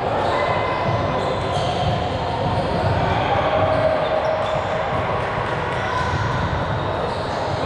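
Indoor court game in a large gym: a ball being hit and bounced amid players' indistinct voices, all echoing in the hall.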